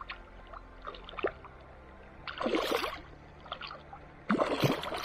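A hooked fish thrashing and splashing at the surface of the stream beside a landing net: two splashes about two seconds apart, the second the louder, with small water slaps and drips before them.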